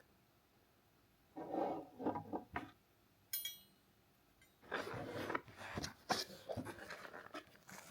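Paper or plastic packaging being handled: irregular rustling and crinkling, with a short ringing clink a little before the middle.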